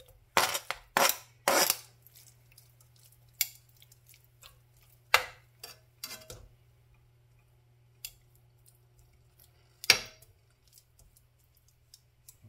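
Kitchen clatter of utensils and a pan: a quick run of three knocks and scrapes in the first couple of seconds, then single clinks spaced out every second or two, one of the loudest near the end, over a faint steady low hum.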